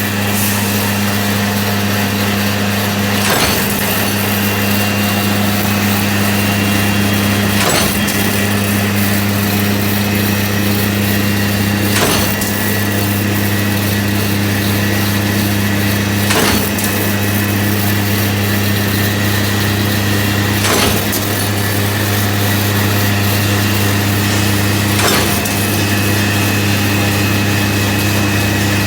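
CNC rebar wire straightening and cutting machine running with a steady motor hum. A sharp cutting stroke comes about every four and a half seconds, six times, as each length of wire is sheared off.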